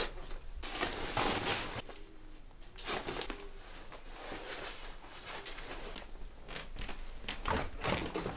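Rustling and knocking of a large hiking backpack being swung onto the shoulders and carried, with footsteps and bumps as the wearer moves through a doorway. The rustles come in irregular bursts, loudest about a second in, around three seconds in and near the end.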